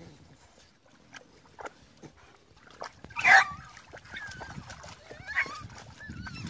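Dogs whining in high, wavering tones, with one loud sudden cry about three seconds in.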